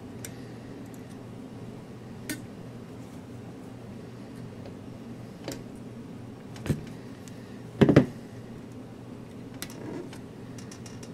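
Sparse clicks and clinks of needle-nose pliers and component leads being handled on a workbench while parts are fitted to a turret board. The loudest is a double knock about eight seconds in, as the pliers are set down on the bench. A steady low hum runs underneath.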